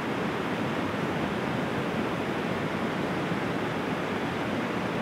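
Willow River white-water rapids rushing over the rubble and around the concrete pier of a removed dam, a steady, even rush of fast-flowing water.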